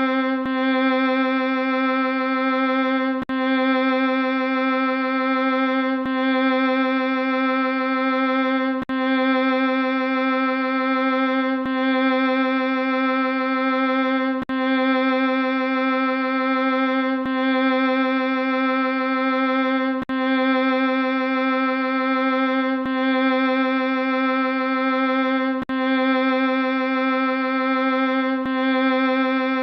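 Looped sound effect: one steady, buzzy sustained tone with many overtones, held at a single pitch and never changing. A click and a brief dip come about every three seconds where the loop restarts.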